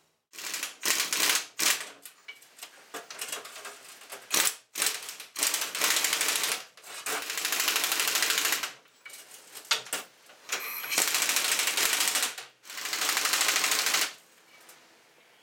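Worn plastic bearing of a 2008 Chevrolet Malibu's front upper strut mount, turned by hand, giving a rapid dry clicking rattle in repeated bursts of one to two seconds. The rattle is the sign of the bearing catching as it rotates: a bad strut mount.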